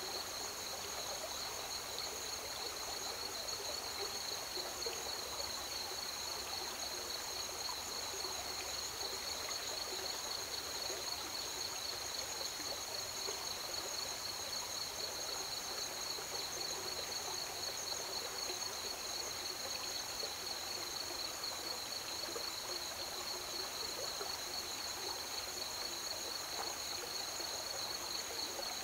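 A chorus of crickets trilling steadily in two continuous high-pitched bands, over the gentle flowing and rippling of a river.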